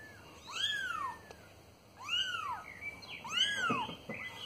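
Two-week-old kittens mewing: three high, thin cries that rise and fall in pitch, about a second and a half apart. These are the panicky calls of newborn kittens taken out of their nest box.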